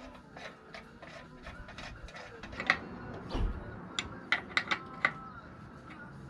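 Irregular metallic clicks and taps as the centre fastening of a KamAZ truck's air filter end cover is worked by hand, with a few sharper clicks between about four and five seconds in.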